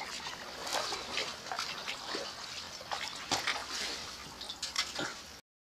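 Kayak paddle splashing and water dripping and lapping around the hull, a string of irregular small splashes and drips. The sound cuts off abruptly near the end.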